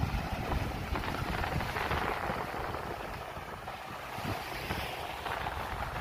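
Wind buffeting the microphone in irregular low gusts over a steady rushing noise.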